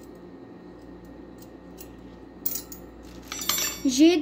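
Stainless-steel hand-mixer beaters clinking against each other as they are handled: a brief clatter about two and a half seconds in, then a louder metallic clink with a short ring near the end.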